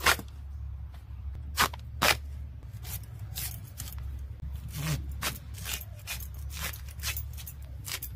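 Elephant foot yam being peeled and sliced against a bonti's fixed upright blade: three sharp knocks in the first two seconds, then a run of short scraping cuts, about two or three a second.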